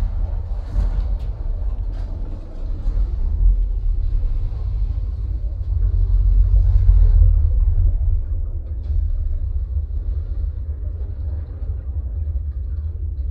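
Deep, continuous bass rumble from a movie soundtrack played through the room's SVS PB-3000 subwoofers. The low rumble swells and eases, and is loudest about six to seven seconds in.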